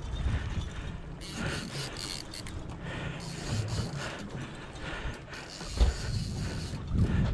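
Heavy fishing reel ratcheting and grinding under load as a hooked tuna is fought on the rod, with one sharp thump about six seconds in.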